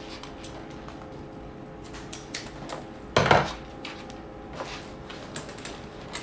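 Hand-sewing sounds at a sail repair: small clicks and clinks of scissors, needle and a metal reef ring, with a louder short rasp about three seconds in as the waxed thread is drawn through the sailcloth.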